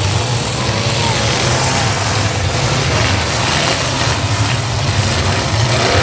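Engines of several full-size demolition derby pickup trucks running at once, a loud, steady low drone under a dense wash of noise.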